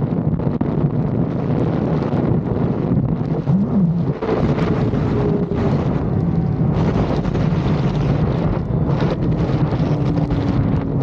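Wind rushing over the microphone of a Honda CB500 parallel-twin motorcycle under way, with the engine running steadily underneath. About four seconds in, the pitch briefly rises and falls.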